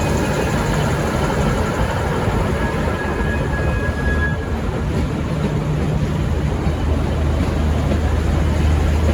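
V/Line VLocity diesel multiple unit running, with a steady low diesel engine drone under rail and rolling noise. A faint thin squeal sounds for a couple of seconds near the middle.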